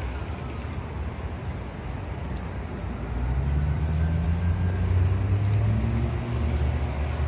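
A motor vehicle's engine passing on the street, a low hum that gets louder from about three seconds in over a steady background of traffic noise.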